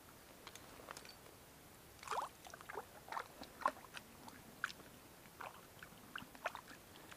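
Faint, irregular light clicks and rustles, a dozen or so small sharp sounds spread unevenly over several seconds.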